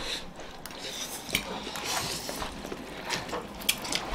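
People eating chowmein noodles with forks: scattered small clicks of metal forks against plates, with soft slurping of noodles.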